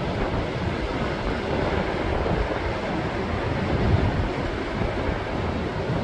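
Rough sea surf breaking over shoreline rocks: a loud, steady wash of crashing waves, with wind buffeting the microphone in the low end.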